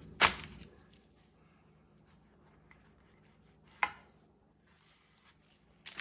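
Kitchen knife knocking against a cutting board while slicing raw chicken breast into medallions: three sharp chops, the first about a quarter second in and loudest, another near four seconds and one just before the end.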